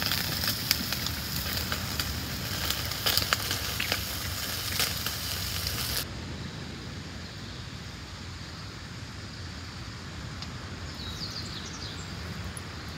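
Meat and sausages sizzling and crackling on a camp grill, with small pops throughout, then cutting off abruptly about six seconds in. After the cut comes a quieter, steady wash of surf from the nearby sea, with a few faint high chirps near the end.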